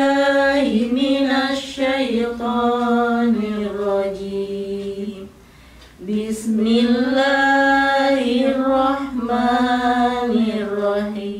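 Women reciting the Qur'an aloud in a slow melodic chant, drawing out long held notes. The recitation comes in two phrases, with a short pause about five seconds in.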